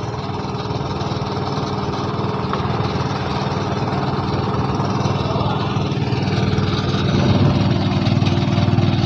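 A small engine running steadily nearby, a little louder about seven seconds in.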